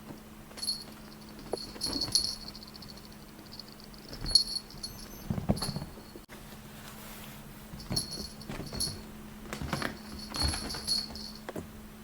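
A small bell jingling in short shaken bursts, about five times, over a faint steady hum.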